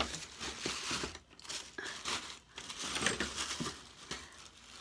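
Irregular crinkling and rustling of wrapping or packaging as a gift package is rummaged through.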